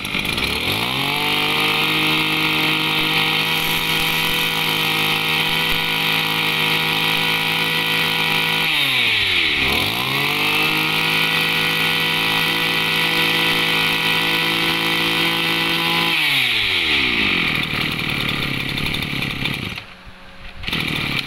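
Maru 26 two-stroke brush cutter engine (26cc) being run up at high throttle and held steady. About nine seconds in the throttle is let off and the engine drops briefly towards idle, then revs straight back up. Near the end the revs fall away again.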